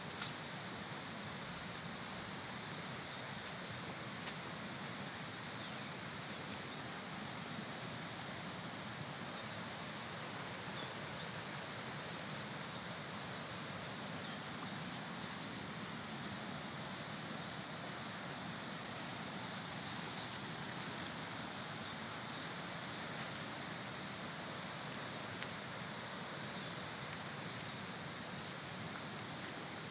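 Outdoor ambience: a steady high insect drone with a few short bird chirps over it, and a constant noisy hiss underneath.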